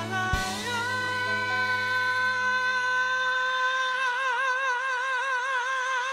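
A male singer holding one long, high sung note over the backing track of a pop ballad, steady at first and then with an even vibrato from about four seconds in. The low backing drops away partway through, leaving the voice nearly alone.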